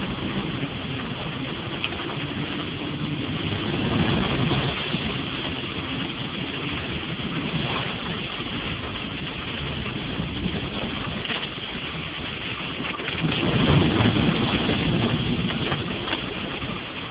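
Ford Explorer driving on a wet, flooded dirt track, heard from inside the cabin: the engine and tyres on the wet ground make a steady noisy rumble. It swells about four seconds in and again near the end.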